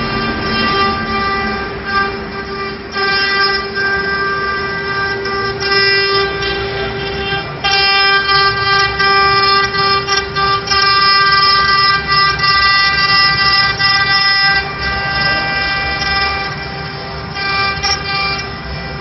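Multi-head CNC wood-carving router running, its spindles giving a steady high whine. It gets louder from about eight seconds in until about fifteen seconds.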